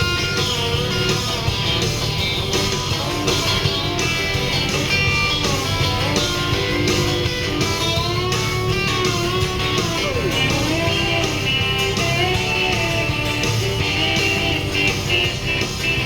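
Instrumental break in a country trucking song: a lead guitar plays a solo with bending, sliding notes over a steady band backing.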